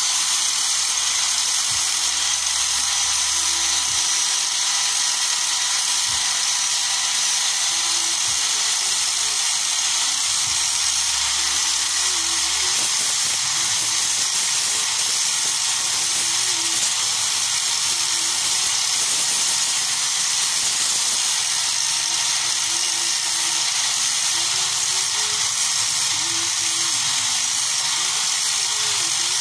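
Handheld electric angle grinder running steadily at high speed with a whine, its abrasive disc resurfacing the worn contact faces of steel engine rocker arms so the valve clearance can be set correctly.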